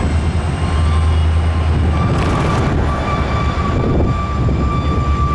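Diesel freight locomotive running at low speed as it creeps toward the crossing, a heavy low engine rumble. A thin, steady high whine sets in about two seconds in, along with a brief hiss.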